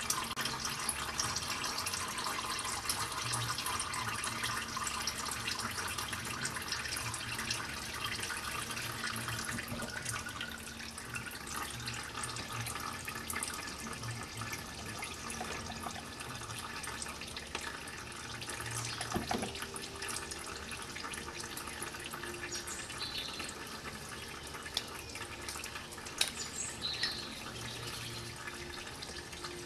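Engine oil draining from the open sump of a 2001 Toyota Yaris Verso into an oil drain pan, a steady pouring trickle. A couple of brief knocks stand out, one about two-thirds of the way in and one near the end.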